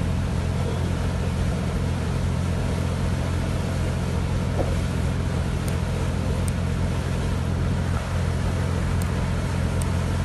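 Boat engine running steadily at cruising speed as a low, even drone, heard from on board, with water and wind hiss over it.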